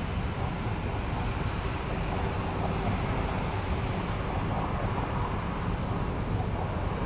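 E2 series Shinkansen running past on an elevated track: a steady rumble of wheels and running noise.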